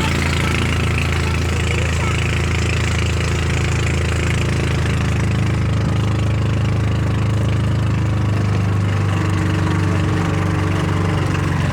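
Small boat engine running steadily at an even pitch.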